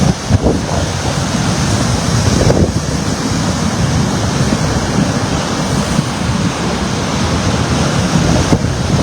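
Strong wind blowing hard and buffeting the microphone in a steady, rumbling rush of noise.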